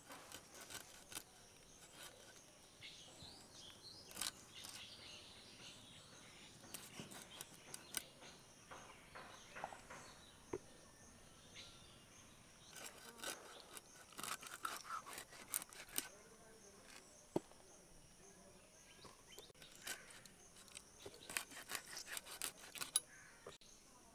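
Quiet, irregular clicks, knocks and scrapes of a blade cutting a hilsa fish into pieces, over a faint steady high-pitched background drone.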